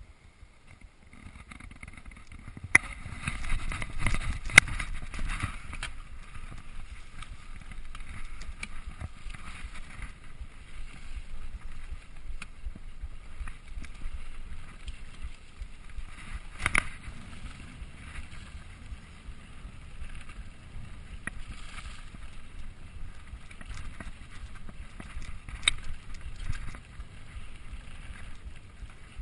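Mountain bike ridden fast down a dirt and leaf-covered trail with no chain fitted: steady tyre and rattle noise that builds as it picks up speed over the first couple of seconds, with sharp knocks from bumps about 3, 5, 17 and 26 seconds in.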